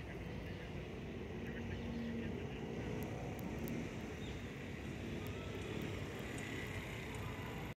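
Steady low outdoor background rumble, like distant traffic, with a few faint high ticks in the middle.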